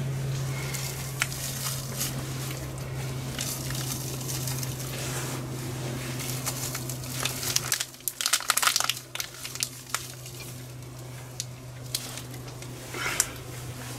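Crinkling of a packet as spoonfuls of brown sugar are scooped out over a cast-iron pot, with light clicks of the spoon. A steady low hum stops about eight seconds in, and the loudest crinkling comes just after.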